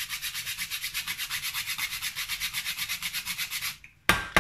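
Whole nutmeg rubbed back and forth on a fine hand grater in quick, even strokes, about seven a second. The grating stops a little before the end, followed by a few loud, sharp knocks.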